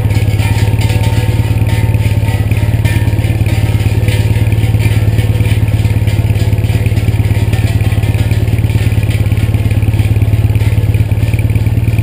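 Triumph parallel-twin motorcycle engine idling steadily at low revs, close to the microphone.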